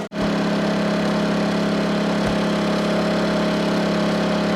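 Small engine running steadily at a constant speed, an even hum with no change in pitch.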